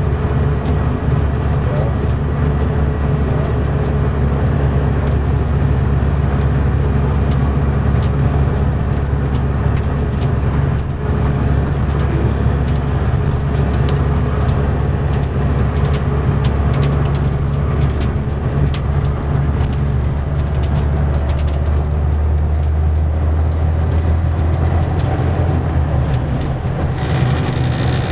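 Mercedes-Benz O560 Intouro coach under way, heard from inside the passenger cabin: a steady diesel engine drone over road and tyre noise, with scattered small clicks and rattles. Near the end the low engine note changes and a brighter hiss comes up.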